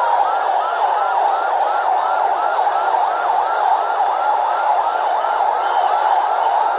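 Vehicle siren on a fast yelp, a short rising-and-falling wail repeating about three times a second, over a dense steady din.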